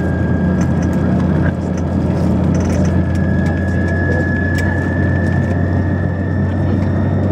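Fokker F27's Rolls-Royce Dart turboprop engines running, heard from inside the cabin: a deep propeller drone under a steady high turbine whine. The whine steps up slightly in pitch about three seconds in and keeps creeping higher.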